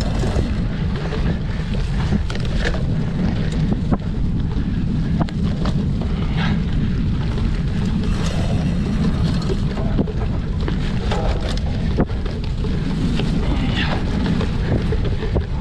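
Wind buffeting the microphone of a cyclocross bike rider's camera at race speed: a steady low rumble with frequent clicks and rattles from the bike on rough ground.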